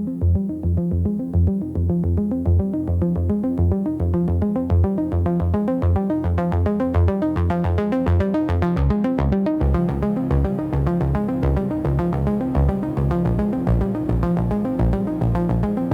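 Electronic techno music: a synthesizer sequence of fast, evenly repeated notes over a pulsing bass line.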